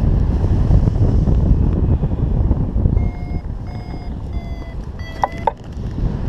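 Wind buffeting the microphone in flight, with a paragliding variometer's short electronic beeps starting about halfway through. The beeps come at an even pace, then quicker and higher just before they stop, the vario signalling rising air.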